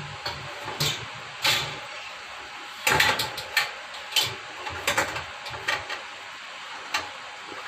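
A pull-out kitchen drawer slid open on its runners, then a series of irregular metal clanks and rattles as the stainless-steel wire basket inside is handled. The loudest clanks come about three seconds in.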